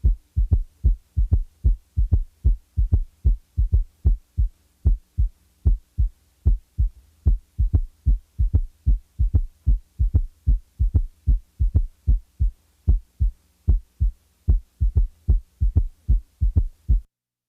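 Heart sounds with a third heart sound (S3 gallop): a run of short, low thumps in which a faint extra sound follows just after the second sound of each beat, giving a three-beat gallop rhythm. The S3 is left out of some cycles. The thumps stop shortly before the end.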